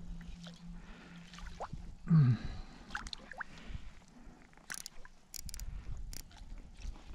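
Baitcasting reel being cranked with a steady low hum that stops after a couple of seconds, followed by a short, loud falling whir and a few sharp clicks from the rod and reel being handled.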